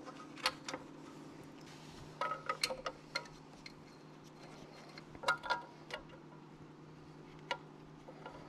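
Light metallic clinks and clicks of a socket, extension and bolts against the engine's metal timing cover as the bolts are started by hand. They come in short groups of a few taps each, with a steady low hum beneath.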